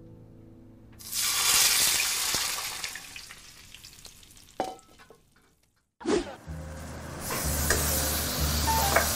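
Food frying in hot oil in a pan. A loud sizzle starts suddenly about a second in and dies away over a few seconds, then after a brief break a second stretch of sizzling frying sets in.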